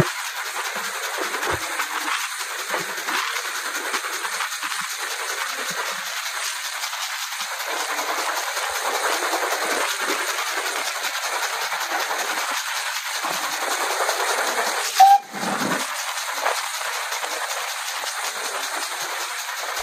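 Steady rushing hiss of a steam-hauled train on the move, heard from an open carriage window with wind on the microphone. A sudden loud bump about fifteen seconds in.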